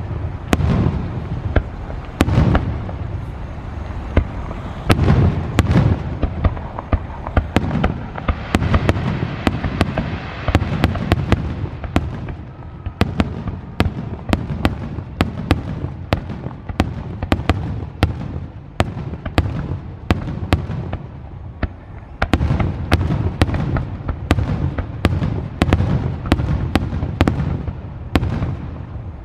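Aerial fireworks display: shells bursting in rapid succession, a dense run of sharp bangs and crackles over deep rumbling booms, thinning somewhat midway and growing denser again near the end.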